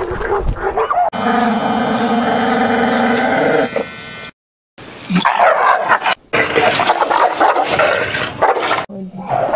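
Dogs barking and whining through several short clips, with a steady buzz for nearly three seconds early on. About four seconds in there is a brief break of silence.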